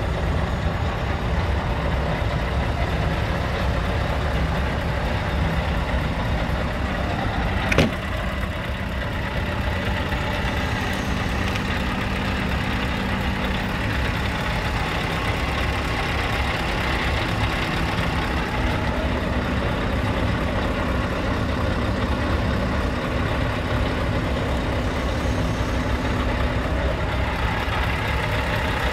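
Scania R tractor unit's diesel engine idling steadily. A single sharp knock sounds about eight seconds in.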